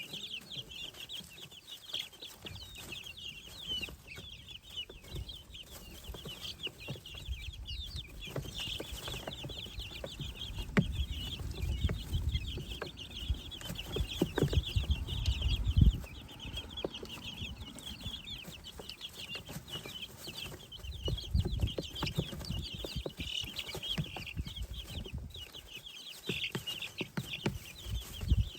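A brood of baby chicks, guinea keets and ducklings peeping continuously, many short high peeps overlapping. A low rumble comes and goes underneath, strongest about halfway through.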